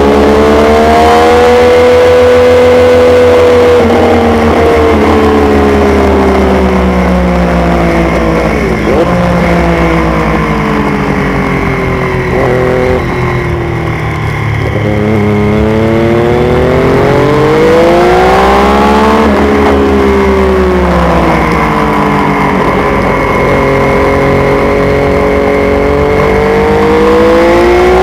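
600cc supersport racing motorcycle engine heard from the onboard camera, with wind rushing over the microphone. The engine pitch falls as the bike brakes into a slow corner, with brief dips as it downshifts, then rises again as it accelerates out. It dips and climbs once more near the end.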